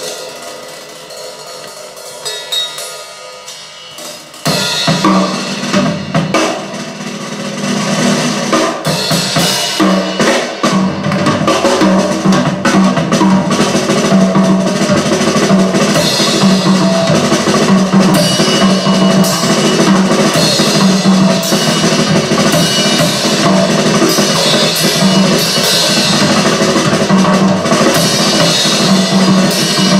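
Drum kit recording from an audio check LP played over full-range loudspeakers with Fostex FE206Σ drivers: bass drum, snare and rimshots. A quieter passage comes first, and the full kit comes in loudly about four and a half seconds in.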